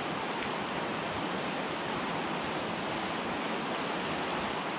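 Rushing water of a mountain trout creek running high and fast in flood, a steady even rush.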